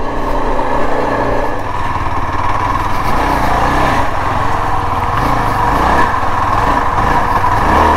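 Yezdi Adventure motorcycle's single-cylinder engine running under way, its pitch rising and falling a few times from about three seconds in.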